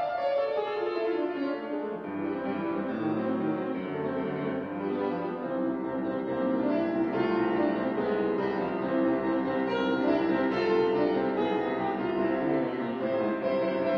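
Solo grand piano playing classical variations: a quick run falls down the keyboard and ends about two seconds in, then busy passagework continues, mostly in the middle register.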